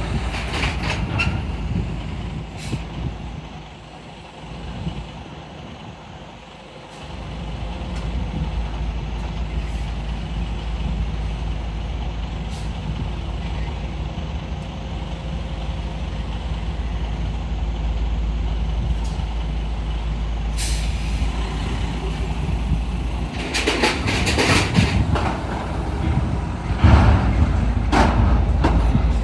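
Heavy diesel dump truck driving slowly onto a ferry, engine running with a low steady rumble that drops back for a few seconds early on and picks up again about seven seconds in. Several sharp air-brake hisses come in the last third.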